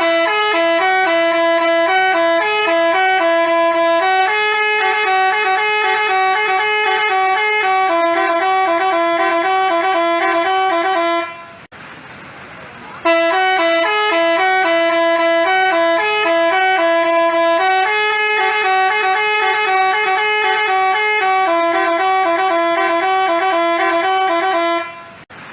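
Basuri telolet bus horn playing a tune of stepped notes. It stops about 11 seconds in and, after a short pause, plays the same tune through again.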